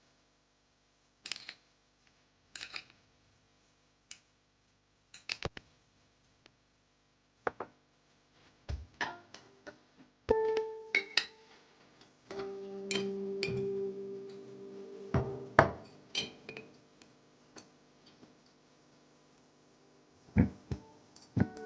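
Scattered clicks and knocks of kitchenware being handled, then from about halfway several clinks that ring on with clear tones, like metal or glass dishes struck and left to ring.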